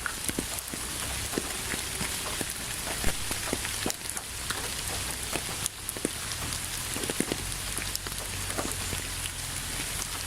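Steady rain falling, an even hiss with many individual drops ticking sharply close by.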